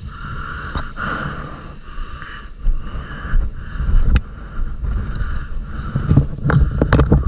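Yamaha SR150 motorcycle engine idling steadily, with several knocks and rattles near the end.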